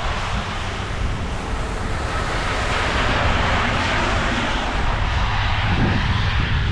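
Road vehicle noise: a steady low rumble, with a rush of tyre or engine noise that swells about halfway through.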